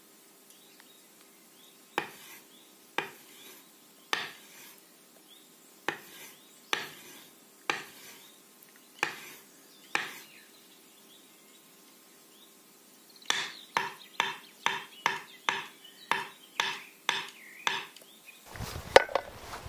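Knife cutting fresh wild mushrooms on a wooden cutting board, each cut ending in a sharp knock of the blade on the board: single cuts about a second apart, then a quicker run of two or three cuts a second. A rougher noise comes near the end.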